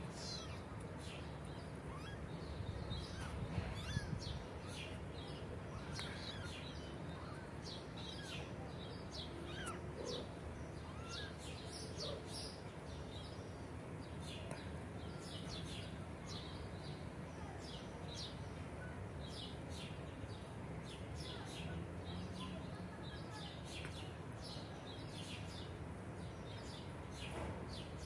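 Small birds chirping over and over, short high calls scattered all through, over a steady low background rumble.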